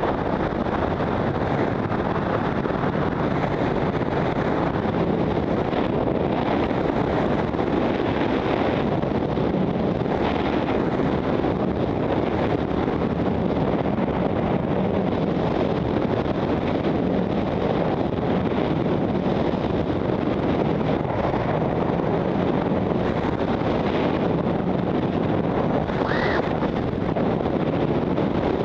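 Steady rush of freefall wind buffeting a helmet-mounted camera's microphone during wingsuit flight.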